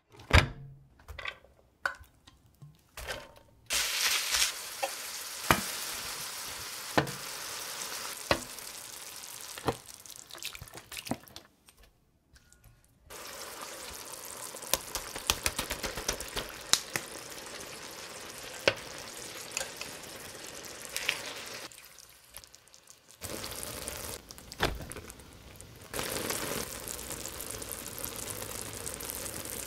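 Ground meat, and then mapo tofu sauce, sizzling in the pan of an electric hot plate, with sharp taps and clicks of utensils on the pan. A few separate knocks come before the sizzling starts about four seconds in. The sizzling breaks off briefly twice, once near the middle and once about three quarters through.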